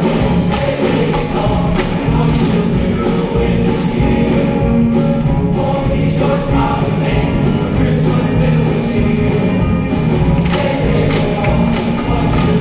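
Live concert music: a choir singing with instrumental accompaniment, with percussion beating steadily throughout.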